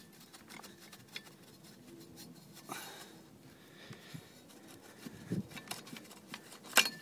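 Folding kayak frame parts being handled and worked apart: scattered light clicks and rubbing of a metal frame piece against wooden stringers, with a sharp clack near the end.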